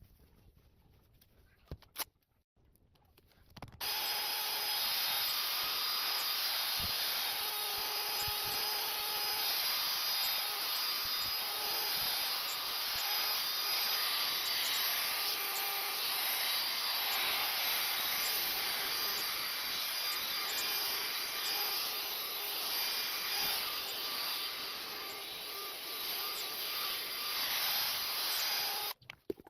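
Handheld power tool running steadily on the car's bodywork with a rough rubbing hiss; it starts about four seconds in and stops abruptly just before the end.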